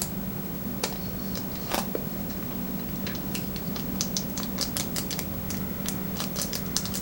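Close-up chewing of sushi: many small wet mouth clicks and smacks, coming thicker toward the end, over a steady low hum.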